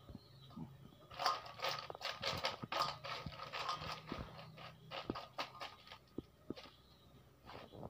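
Paddy-field snails clicking and rattling against one another and a stainless steel bowl as a hand rummages through the pile, a dense clatter from about a second in that thins to a few single clicks after the middle.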